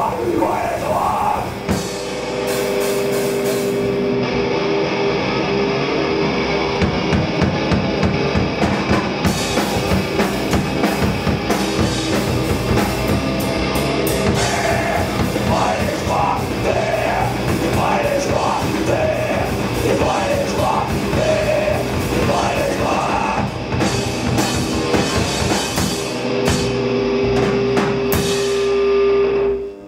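Live rock band playing loud and fast: a pounding drum kit with cymbals and electric guitar, with sung vocals through the middle. The music cuts off abruptly at the end.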